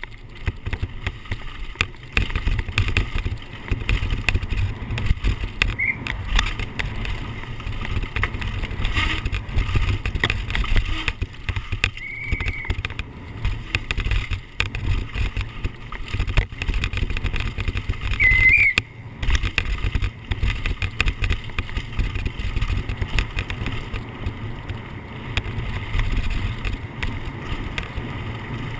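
Downhill mountain bike descending a rough dirt trail, heard from a camera riding with it: continuous rattling and knocking as the bike runs over bumps and roots, over a steady low rumble. A few brief high squeaks come through, the longest about twelve seconds in.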